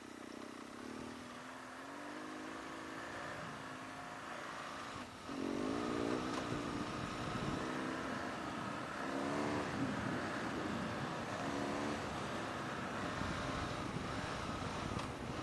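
BMW R1200GS Adventure motorcycle's boxer-twin engine under way, rising in pitch several times as it accelerates, over a steady rush of noise. There is a brief dip about five seconds in, after which it runs louder.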